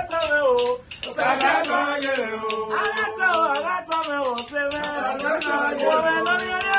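A man singing a melodic line live, with a steady clicking hand-percussion beat beneath it.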